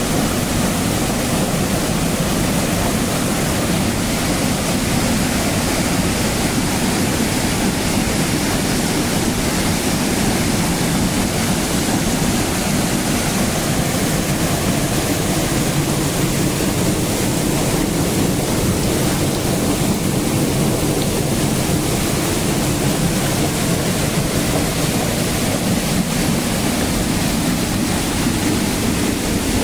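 Small waterfall and fast-flowing stream: water pouring over rocks and churning in the pool and bed below, a loud, steady rush.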